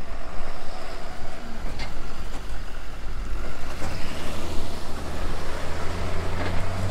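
Delivery truck engine running in the street, a steady low hum that sets in about four seconds in, over general street noise.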